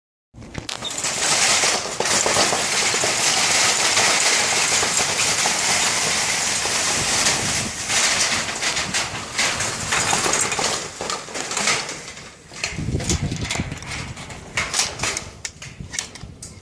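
Rain falling steadily as a dense hiss, which thins after about twelve seconds into scattered separate drop ticks.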